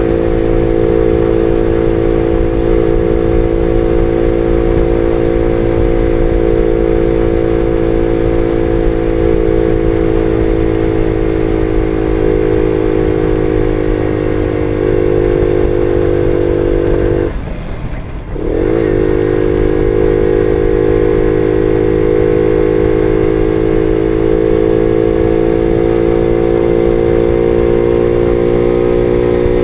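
Jawa Betka 50 moped engine running steadily under way. About two-thirds of the way through the engine note drops away for a second or so, then picks up again and slowly rises in pitch.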